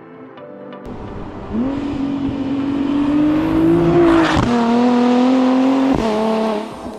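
Tuned Nissan GT-R R35's twin-turbo 3.8-litre V6 accelerating hard under full throttle. The pitch rises steadily, then drops sharply with a quick upshift about four and a half seconds in, climbs again, and drops with a second shift about six seconds in.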